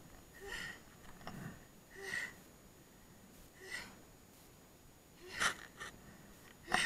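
A skier breathing hard after a fall: five short gasping breaths close to the microphone, roughly one every second and a half, the last the loudest near the end.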